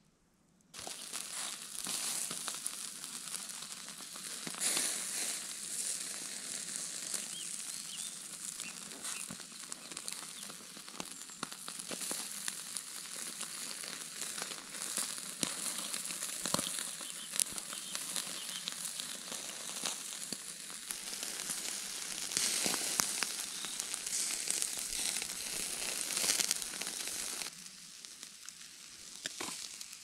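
Food frying in a pan over a fire: a steady sizzle with many small crackles and pops, starting suddenly about a second in and dropping off near the end.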